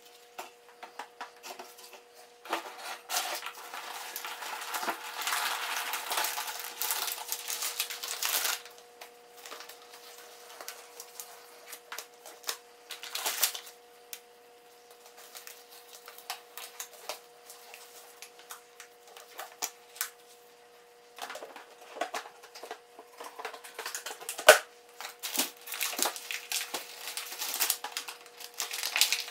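Aluminium foil crinkling as it is squeezed and shaped by hand, in two long spells with small rustles and clicks between them. A faint steady hum sits under it.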